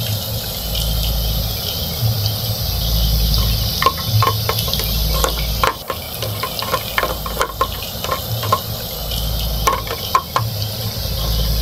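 Steady frying sizzle from a toy kitchen set, with a low hum that swells about every second and a half. From about four seconds in come light clicks and taps as a plastic spatula stirs and scrapes in a toy frying pan.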